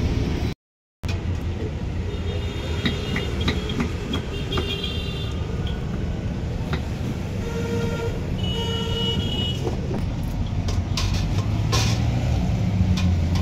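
Road traffic rumbling steadily, with vehicle horns honking in two spells, the first a couple of seconds in and the second around the middle. A few sharp clinks of steel serving ware sound in between.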